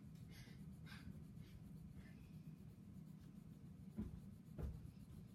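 Faint scratching of colouring-in strokes on paper, a few louder strokes standing out, over a low steady background hum.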